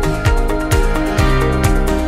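Background music with a steady kick-drum beat, a little over two beats a second, under held chords.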